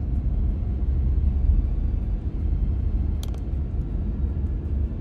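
Steady low rumble of an MG Hector SUV driving: road and engine noise, with one brief tick about three seconds in.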